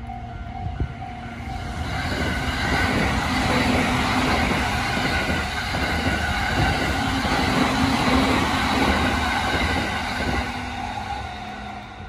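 Electric commuter train passing over a railway level crossing: its running noise builds about two seconds in, stays loud through the middle and fades near the end. The crossing's electronic warning bell keeps ringing in steady tones behind it.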